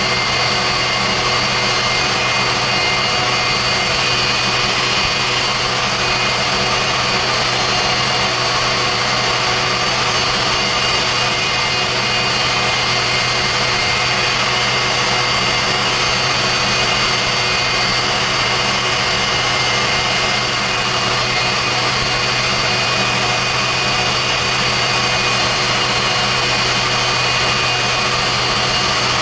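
Westinghouse J34 turbojet running steadily at part throttle on a moving pontoon boat. It makes an even rush of exhaust noise with a steady high whine over it.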